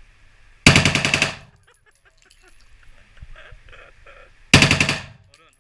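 Two short bursts of fully automatic gunfire, one about a second in and one near the end, each a rapid string of shots lasting under a second, ringing in an enclosed indoor range.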